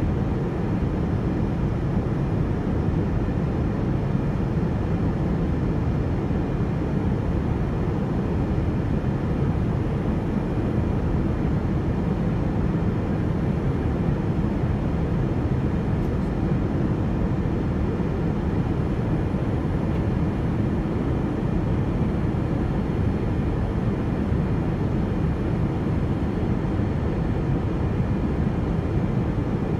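Cabin noise of a Boeing 787-9 Dreamliner in flight: a steady, low rush of engine and airflow heard from inside at a window seat.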